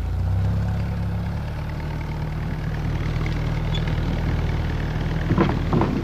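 An engine running steadily at low speed, a low even hum, with a few short louder sounds near the end.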